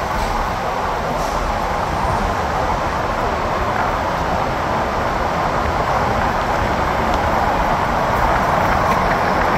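Steady noise of car traffic moving through a road tunnel, heard from an open car window.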